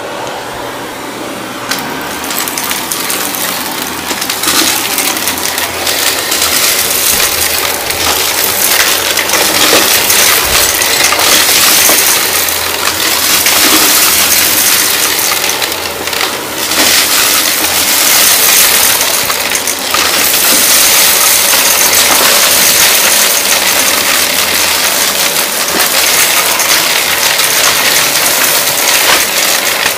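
Shark Navigator upright vacuum running at full suction over the edge of a pink shag rug, with a steady motor whine under a loud rushing hiss and the crackle of debris being sucked up. The level dips briefly a few times as the vacuum is moved.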